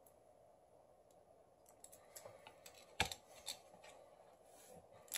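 Faint, scattered clicks and taps of a smartphone's metal mid-frame and display being handled with fingers and tweezers, the sharpest click about three seconds in and another at the very end.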